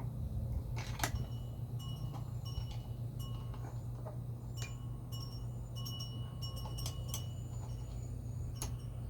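Light metal clicks and short ringing pings of hand tools against the generator's metal parts, coming irregularly over a steady low hum.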